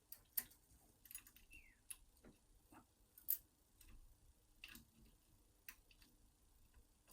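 Faint, irregular small metal clicks and taps as the brass levers of a 5-lever mortice sash lock are handled and lifted out of the open lock case, with one sharper click about three seconds in.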